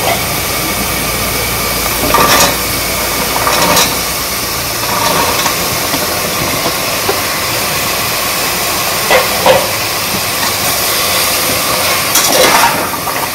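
Green masala paste sizzling in oil in a pressure cooker as chopped vegetables are tipped in and stirred, a steady hiss with a few short scrapes and knocks of the spatula against the pot.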